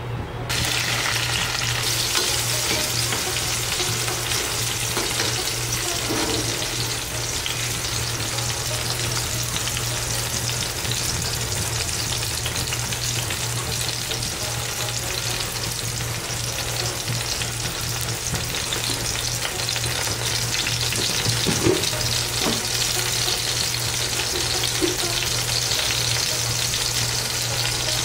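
Food frying in hot oil in a frying pan, sizzling steadily, with a few short scrapes of a spatula stirring. The sizzle starts abruptly about half a second in, over a steady low hum.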